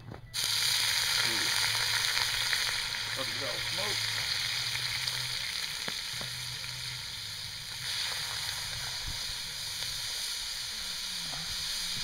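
Bloody Mary mix sizzling as it is poured into a very hot cast-iron Dutch oven, a steady hiss that starts suddenly and eases a little after about eight seconds. The pan is hot enough that the liquid boils on contact.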